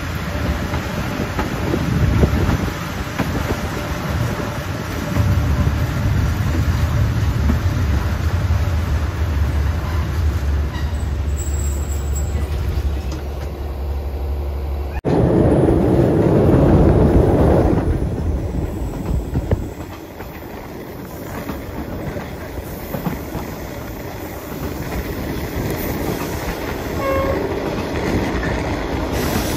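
SE9 passenger train running on the track with a steady low rumble. The sound changes abruptly about halfway through, briefly getting louder, then settles down quieter.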